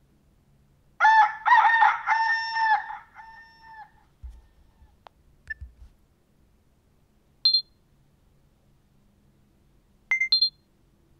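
The Nokia 6600's 'Rooster' ringtone: a recorded rooster crowing once, starting about a second in and lasting about two and a half seconds, played through the phone's speaker. A few short, high beeps follow later.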